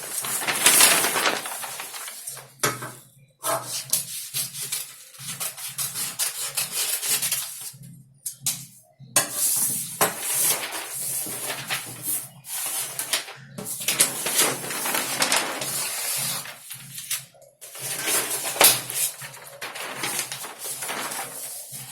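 Soft voile fabric being worked by hand on a cutting table: irregular rustling and scraping strokes with small clicks, stopping briefly a few times.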